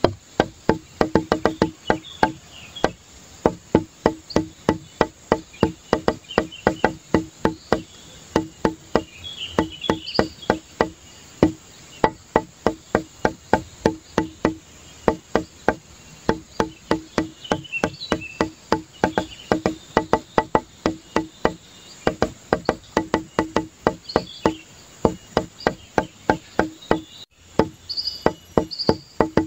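Background music: a fast, even beat of short clicky notes, with one pitch repeating throughout.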